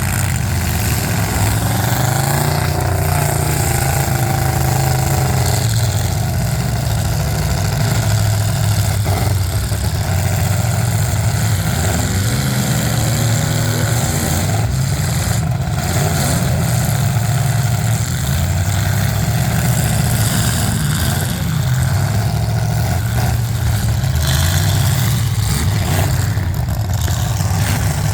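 Demolition derby cars' engines running loud, with revs swelling up and down now and then.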